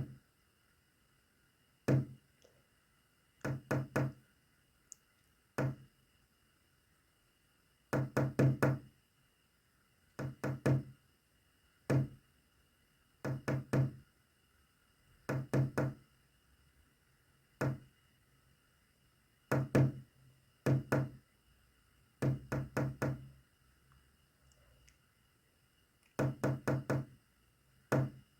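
Knocking on a hard surface in uneven groups of one to five quick knocks, with pauses between the groups: a message being tapped out in code.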